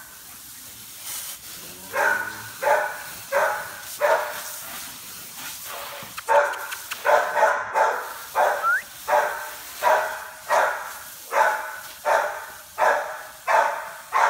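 A dog barking over and over: a few spaced barks, then from about six seconds in a steady run of about two barks a second.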